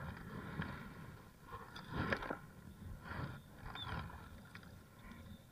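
Scattered light knocks and scrapes of hands and a landed fish against a kayak and fishing line as the fish is unhooked, the loudest about two seconds in, with a brief high chirp near four seconds.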